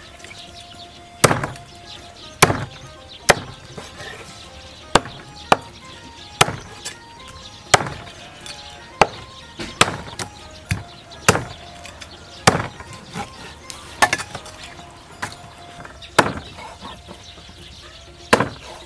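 Heavy cleaver chopping soft-shelled turtle, shell and bone included, into small pieces on a thick wooden chopping block: sharp, unevenly spaced chops about one a second. Faint background music underneath.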